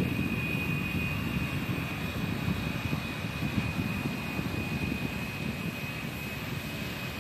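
Wind buffeting the microphone, a rough, fluctuating rumble that slowly eases off, with a faint steady high whine underneath.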